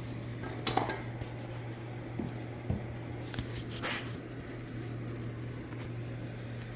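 A dog moving about on a hard floor: a few scattered clicks and a brief scuffle, over a steady low hum.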